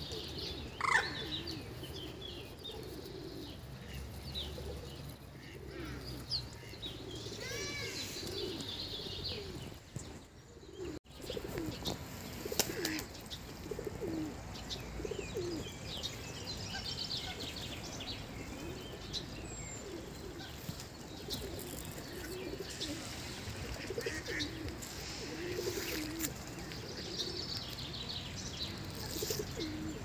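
Feral pigeons cooing over and over in low, rolling calls, with small songbirds chirping higher above them.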